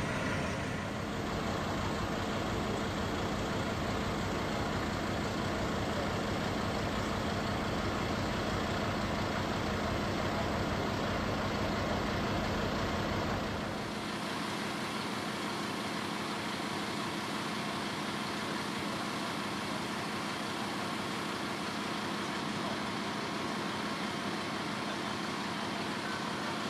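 Fire engine's diesel engine running steadily, a constant hum with a low rumble. About 14 seconds in the rumble drops away, leaving a steady hiss.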